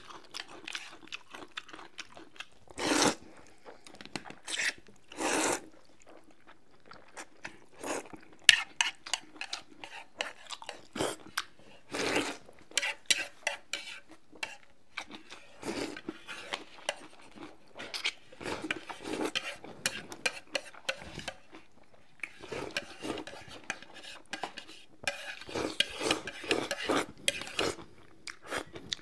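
Mealtime eating sounds: chopsticks clicking and scraping against ceramic plates and bowls in irregular short taps, with noodles slurped off chopsticks now and then.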